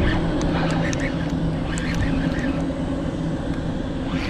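Steady low drone of a passing aircraft's engines, its lowest hum fading about three seconds in, with a few short light clicks over it in the first half.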